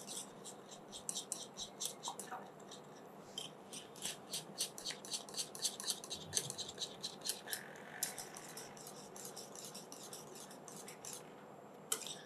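Wire whisk stirring thickening mango compote in a cooking pan, its wires ticking lightly and rapidly against the pan in a long run of quick strokes that thins out near the end.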